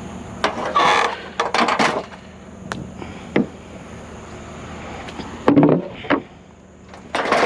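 Irregular knocks and clattering of scrap items being handled and set down. There are short bursts of clatter in the first two seconds, a few single sharp knocks, and a heavier pair of thumps a little after halfway.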